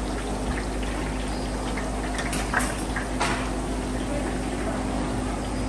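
Battered fritters deep-frying in a large wok of hot oil, a steady sizzle, with a metal skimmer clinking against the wok twice around the middle. A steady low hum runs underneath.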